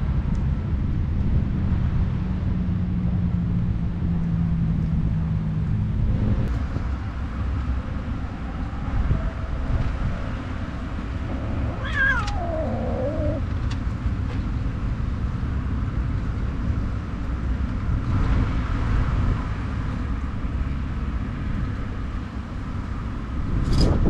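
Steady wind noise on the microphone, with a low steady hum for the first few seconds. About halfway through, a cat gives a single meow that falls in pitch.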